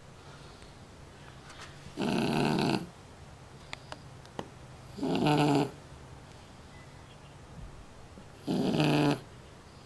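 Shar-pei dog snoring, three loud snores about three seconds apart, each lasting under a second.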